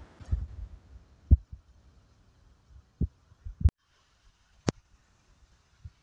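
Half a dozen dull low thumps at uneven spacing, the one about a second in the loudest, with one sharper click later. Between them there is near silence and almost no water noise. They are bumps and handling knocks on the phone recording the hike.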